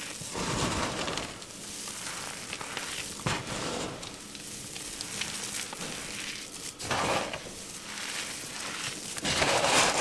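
Hands crushing and crumbling clumps of dry blue powder, a gritty crunching with the hiss of loose powder sifting through the fingers. The crunching swells in several louder squeezes, about half a second in, around three seconds, around seven seconds and near the end.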